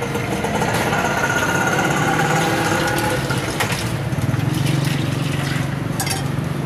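A steady low engine-like hum that grows stronger about four seconds in, with faint indistinct voices in the first few seconds and a couple of sharp clicks.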